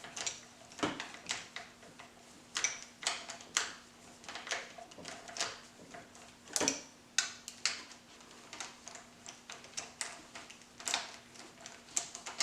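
Hand ratchet clicking in short irregular runs as a cylinder head bolt is backed out of a Ford 3.8 L V6, with light metal taps among the clicks. A faint steady hum lies under it throughout.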